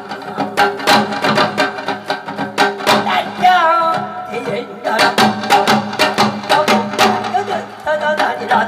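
Korean traditional folk music: a drum struck in a quick, steady rhythm under a wavering melodic line.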